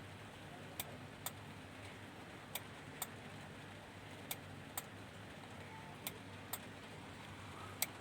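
Denon AVR-2113 AV receiver's relay clicking in pairs, two clicks about half a second apart, repeating roughly every second and three-quarters as the receiver fails to power on and keeps cycling. Each relay click comes with a drop in the 5.2 V supply, which the repairer traces to an unstable 5.2 V rail in the SMPS.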